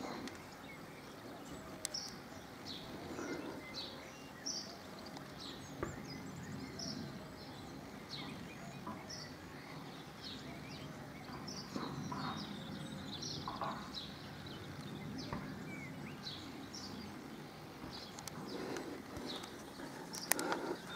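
Small birds chirping repeatedly over a steady low background noise. There is a sharp click about two seconds in and a louder knock near the end.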